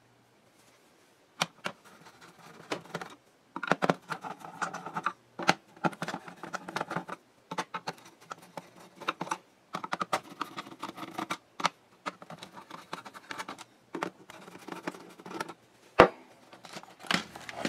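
Screwdriver backing the screws out of the plastic bottom case of an Epson HX-20 portable computer: repeated bursts of scraping and creaking as each screw turns, with scattered clicks. Near the end there is one sharp knock as the tool is set down.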